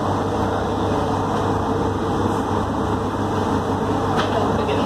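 Automated airport people mover train running, heard from inside the car: a steady rolling noise over a constant low hum.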